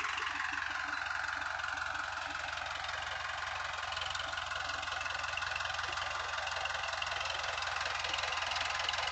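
Powertrac Euro 55 tractor's 55 hp diesel engine running steadily under load as it pulls a trolley fully loaded with sugarcane.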